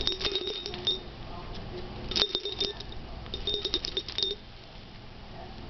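Metallic jingling and clicking in three bursts, the first and last about a second long and the middle one shorter, as a caique parrot shakes and bites its toy.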